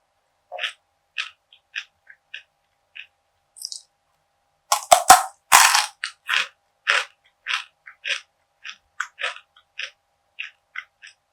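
Close-miked eating of crisp perilla seed gangjeong. A few light crunches come first, then loud cracking bites about five seconds in, followed by steady crunchy chewing at two or three crunches a second.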